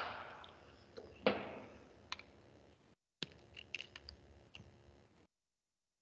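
Scattered light clicks, with a louder knock about a second in. The sound cuts out to dead silence after about five seconds.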